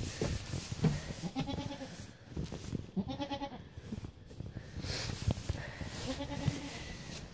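Alpine goats bleating: three wavering bleats of about half a second each, with short knocks and rustling from movement in the hay between them.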